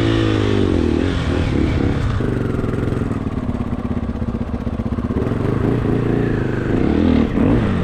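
Husqvarna dirt bike engine running at low speed from the rider's seat, revving up and back down right at the start, then holding steady, with another rise in revs near the end.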